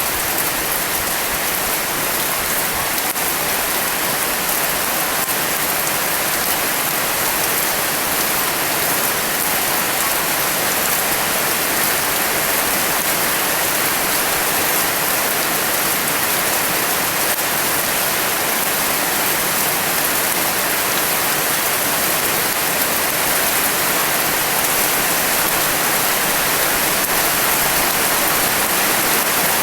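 Steady, heavy rain falling, a dense, unbroken hiss of drops.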